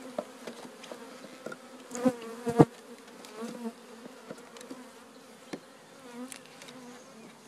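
A package of Italian honeybees buzzing steadily, with a few metal clicks and one sharp knock about two and a half seconds in as a hive tool pries at the syrup can stuck in the package.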